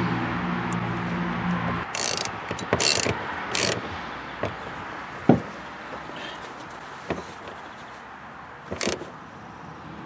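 Hand work on a car's wiring: scattered sharp clicks and rattles of plastic connectors and cable being pushed and snapped into place, with one louder knock about five seconds in. A steady tone, likely background music, stops about two seconds in.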